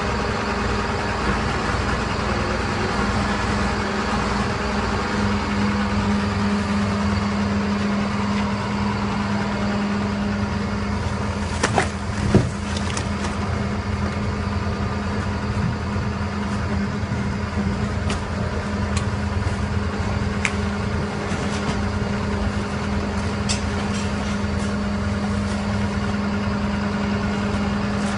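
Skip loader lorry's diesel engine running steadily with a strong low hum while its arms tip the skip. A few sharp knocks come about twelve seconds in, with fainter clicks later.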